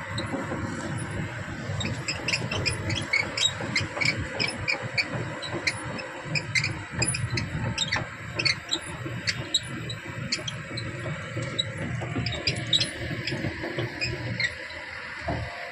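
Heavy construction machinery running with a steady low engine rumble, with many short, irregular metallic clicks and squeaks over it.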